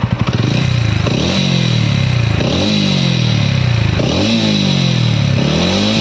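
TVS Ronin 225's single-cylinder engine being revved in repeated throttle blips. The pitch jumps up and falls back about every second and a half. After a service for an engine-noise fault, the owner calls this the normal engine sound and hopes the noise is gone.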